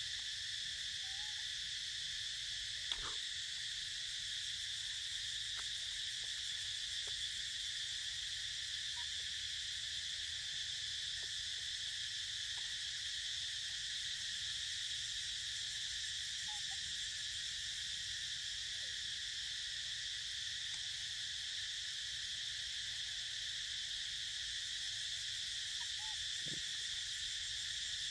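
Steady, high-pitched drone of forest insects, unbroken throughout. A few faint short squeaks come through it, and there is one soft click about three seconds in.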